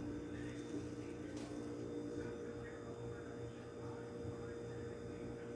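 A steady low hum with a faint steady tone above it; a second tone in the hum drops out about two seconds in.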